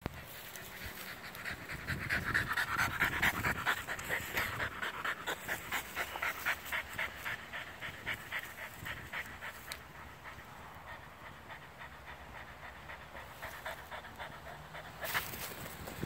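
French Bulldog panting hard, a quick even rhythm of about four breaths a second that grows fainter after about ten seconds.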